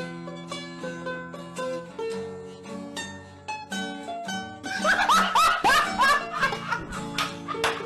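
Upbeat background music with plucked strings, like a mandolin or ukulele. About two-thirds of the way through, a quick run of five or six short rising squeaky calls cuts in.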